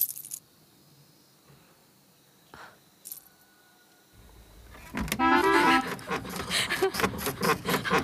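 Bangles jingling on a bride's wrists: a bright clatter at the start, then two faint clinks about two and a half to three seconds in. About five seconds in, loud music comes in.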